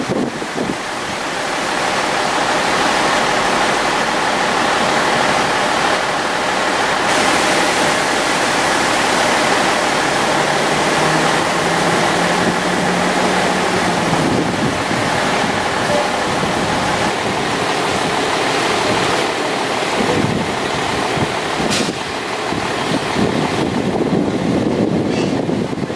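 Steady rushing outdoor noise, with a low engine-like hum for a few seconds about halfway through.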